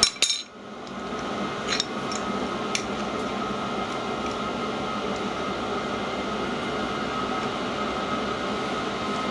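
An adjustable steel spanner clanks sharply against metal right at the start, then ticks lightly on the three-jaw chuck about two and three seconds in as it is used to tighten the chuck. Under it runs a steady workshop hum.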